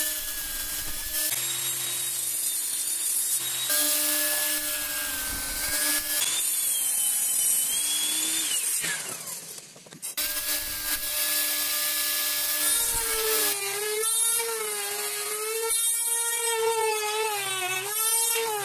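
Table saw running and cutting pine strips in a few short edited takes, then, past the middle, a trim router running and rounding over the edge of a strip, its whine wavering as it cuts.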